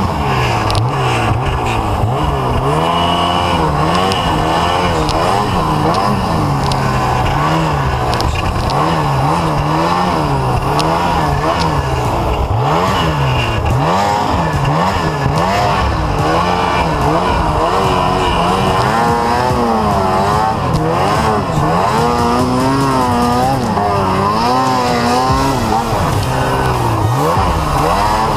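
Snowmobile engine revving up and down without a break as it is ridden through deep powder, its pitch rising and falling every second or two with the throttle.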